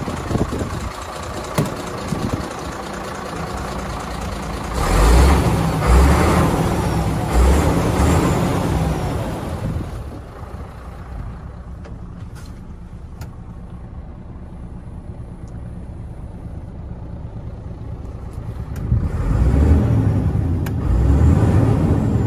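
Scania P94D 220 truck's diesel engine running. About five seconds in comes a louder, noisier stretch with a few low thumps, then a quieter spell, and near the end the engine is revved up to around 1,500 rpm.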